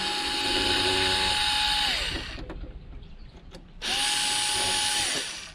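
Small cordless electric screwdriver backing out screws from a sewing machine's plastic base panel: a steady motor whine that winds down about two seconds in, then a second run of a little over a second near the end.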